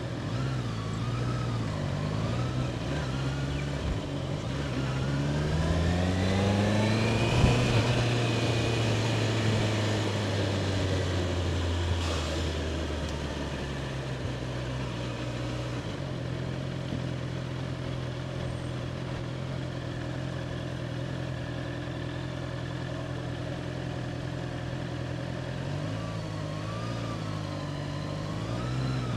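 Honda CBR650R's inline-four engine pulling away, its pitch rising through the revs about five seconds in, then easing off and running at a steady low note for much of the rest before wavering again near the end.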